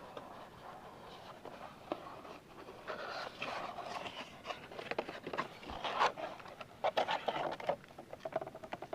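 Crinkling, rustling and scraping of a trading-card box and its wrapping being handled and opened, with scattered short clicks and tears, busier from about three seconds in.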